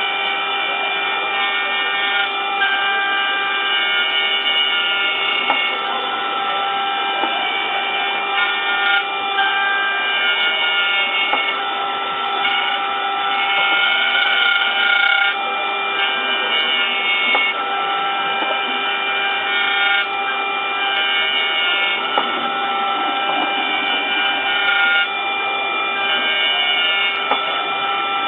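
Mini 5-axis CNC router machining an impeller: the spindle and axis motors run with a steady whine of several tones, whose pattern shifts every few seconds as the cutting path changes.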